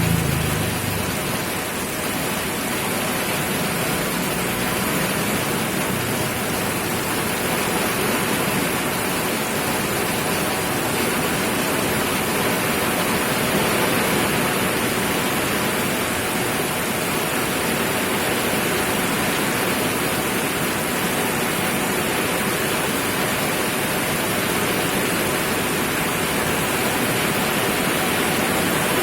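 Steady heavy rain falling, a continuous even hiss with no let-up.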